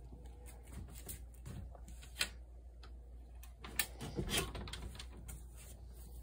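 A few light clicks and knocks over a low steady hum, the sharpest about two seconds in and near four seconds: a screen door being handled and opened.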